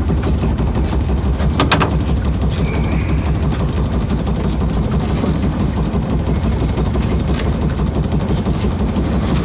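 A small sailboat's auxiliary engine running steadily under way, a constant low drone mixed with wind and water noise. One sharp knock about two seconds in.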